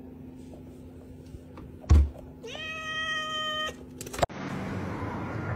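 A loud thump about two seconds in, then a cat gives one drawn-out meow lasting a little over a second. The meow is followed by a couple of clicks and a sudden cut.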